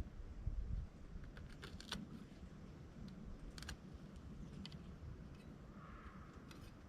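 Faint scattered clicks and light rattles from hands working fine copper wire with a knife, over a low rumble.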